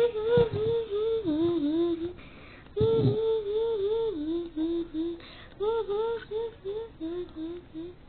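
A girl humming a simple wordless tune in three short phrases, each a run of short notes that steps down in pitch.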